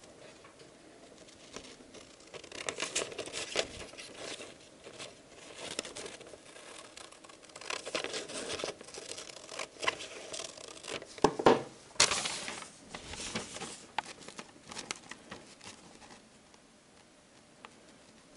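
Scissors snipping through a sheet of paper in short, irregular cuts, with the paper rustling and crinkling as it is turned in the hands. The loudest sharp rustle comes about two-thirds of the way through, and the sound gets quieter near the end.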